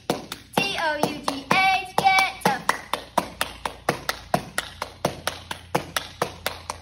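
A young girl's hand claps in a steady rhythm, under a short sung cheer chant in her voice for the first two seconds or so. Then the claps go on alone at about three a second.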